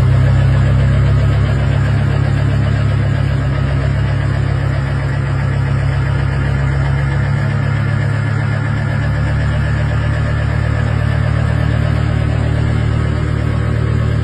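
A steady low drone like an engine running, unbroken throughout.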